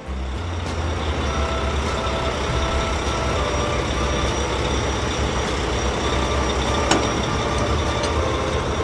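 Truck engine running steadily as the dump truck drives, with faint tones switching on and off above it and a sharp click about seven seconds in.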